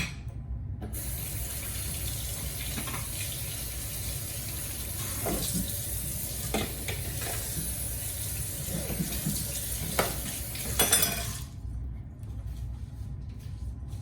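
Kitchen tap running into a sink for about ten seconds, with a few knocks and clatters, then turned off.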